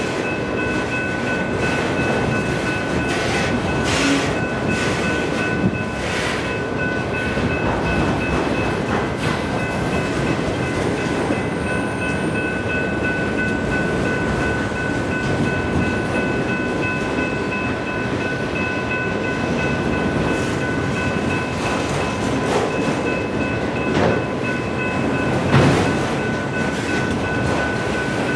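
Freight train of autorack cars rolling past: a steady rumble of steel wheels on rail with a few clanks along the way, and a steady high whine over it.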